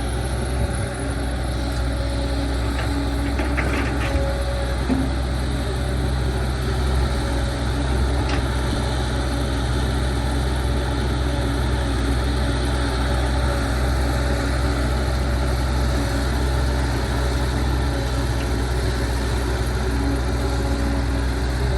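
Heavy machine's diesel engine running steadily at a low, even speed, with a few faint clicks or clanks about three to four seconds in and again near eight seconds.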